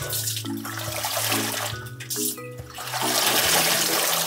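Water splashing and sloshing in a metal basin as leafy bitter greens are swished and dunked by hand to wash them, heaviest in the last second or so, over background music.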